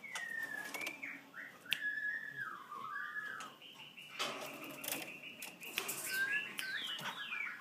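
Oriental magpie-robin giving gliding, wavering whistled notes that rise and fall, with a flurry of wing flaps and clicks about four to five seconds in.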